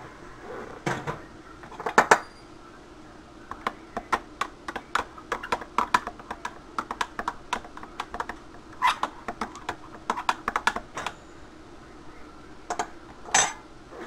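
A spoon stirring coffee grounds in a French press, clicking and clinking quickly against the sides of the carafe, with a couple of louder knocks early and another near the end.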